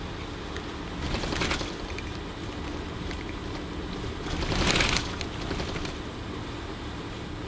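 Steady road and engine noise inside a vehicle travelling along an expressway, with two louder whooshes, about a second in and again around four to five seconds in.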